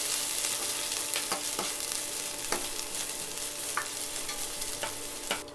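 Sliced onions and curry leaves sizzling in hot oil in a stainless steel kadai, sautéing, with a metal spoon scraping and knocking against the pan a few times as they are stirred. The sizzle cuts off abruptly near the end.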